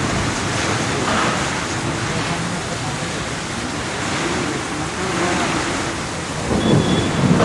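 Thunderstorm: steady rain with thunder, and a louder low rumble swelling near the end.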